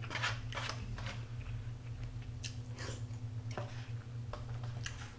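A person eating from a white foam bowl with a spoon: quiet chewing, with scattered small clicks from the spoon and bowl over a steady low hum.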